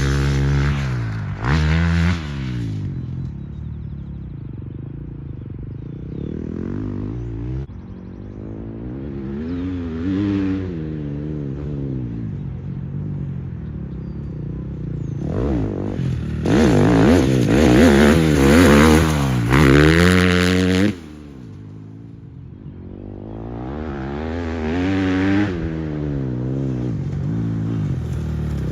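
2022 Husqvarna FC 350's single-cylinder four-stroke engine, fitted with an aftermarket Vortex ignition, revving up and down repeatedly as the dirt bike is ridden hard through the gears. It is loudest about two-thirds of the way through, then drops off suddenly when the throttle shuts and builds again near the end.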